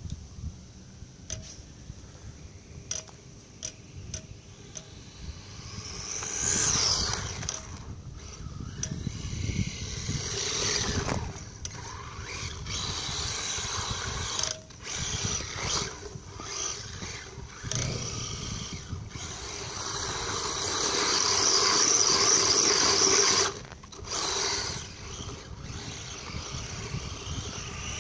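Brushless electric motor of a 1:14-scale HSP Wild Wind rally RC car whining in throttle bursts, rising in pitch as it speeds up, with the tyres spinning and churning through snow. After a quieter start of about six seconds it runs in repeated bursts, the longest and loudest stopping abruptly about 23 seconds in.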